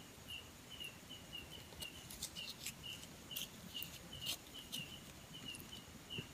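Faint clicks and crinkles of fingers and a knife working open a small plastic sachet, over a steady high chirping that repeats about twice a second.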